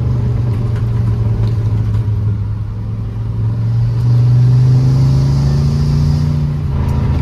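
A car or truck engine and exhaust running under way with a deep, steady drone. About four seconds in it gets louder and climbs slightly in pitch as it accelerates, then drops back near the end.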